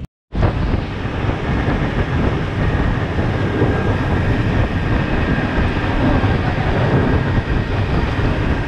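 Small motorboat under way, its engine running steadily at speed with water rushing past the hull.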